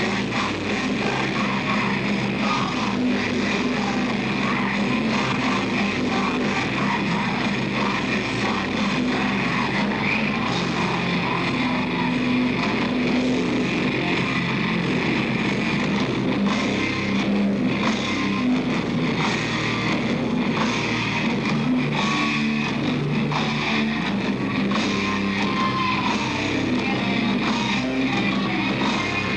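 A rock band playing live: distorted electric guitars over a drum kit, a dense, steady wall of sound.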